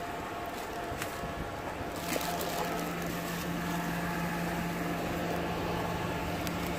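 A steady low mechanical hum that sets in about two seconds in, over rumbling wind noise on the microphone, with a few sharp clicks from the phone being handled.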